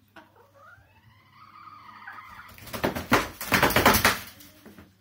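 A silkie chicken gives a drawn-out squawk, then jumps and flaps its wings, landing in dry wood shavings in a plastic pet bed, with a loud burst of wing flapping and rustling about halfway through.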